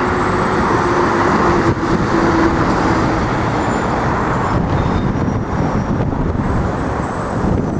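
City street traffic: a steady rush of road noise from passing vehicles, louder over the first four or so seconds as a vehicle goes by with a faint steady hum, then easing off.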